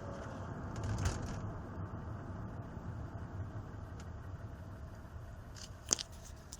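Mercedes 320 CDI diesel engine running steadily, with a couple of sharp clicks, the louder one near the end.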